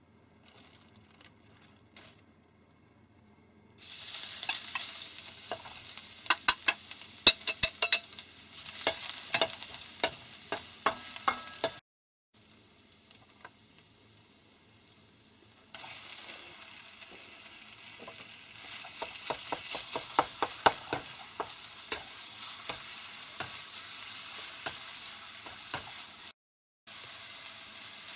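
Food sizzling in a frying pan while being stirred, with many quick clicks of a utensil against the pan. The sizzling starts about four seconds in, cuts off abruptly near the middle, then comes back for about ten seconds before cutting off again.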